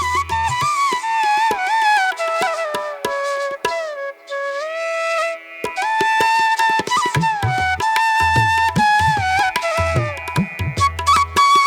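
Instrumental background music: a melody that slides between notes over drum strokes. The low drum beats drop out for a few seconds in the middle and come back.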